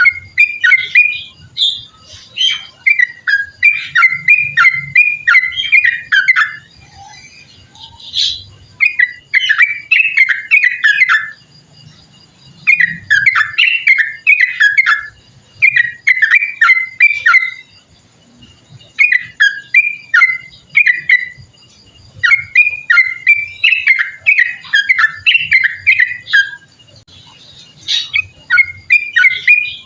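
Yellow-vented bulbul (trucukan) singing: long runs of quick, bubbling whistled notes, each run lasting a few seconds, with short pauses between them.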